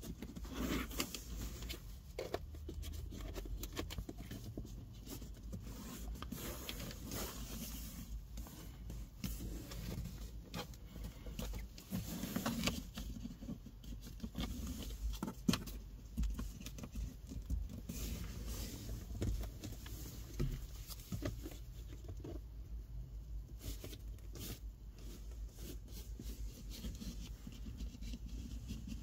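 Rubber trim strip being pressed and run into a plastic dashboard gap with fingertips and a plastic fitting tool: irregular small clicks, taps and rubbing scrapes over a low steady rumble.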